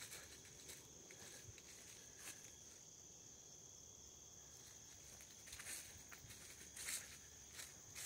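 Faint steady high-pitched trill of insects singing. Soft footsteps on a grassy, leaf-strewn trail come at the start, stop for a few seconds, and resume about two thirds of the way in.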